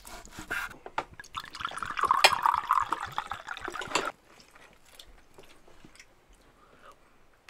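Liquid poured from a glass bottle into a ceramic mug: a steady pour of about three seconds that stops abruptly. A few light knocks come before it, and faint ticks follow.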